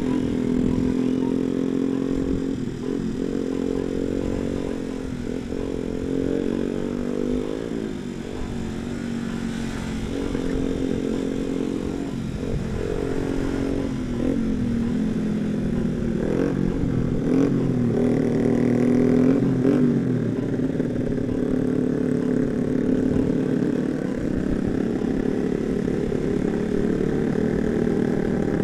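Sport motorcycle engine running under load while riding, its pitch climbing and then dropping back several times as the throttle is worked.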